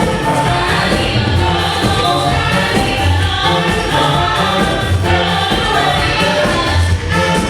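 Church choir singing a gospel anthem over a steady bass and percussion beat.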